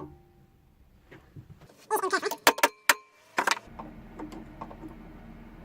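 Metal tools clinking and clattering several times, sharp and loud with brief ringing, about two to three seconds in, followed by a steady low machine hum that starts near the end.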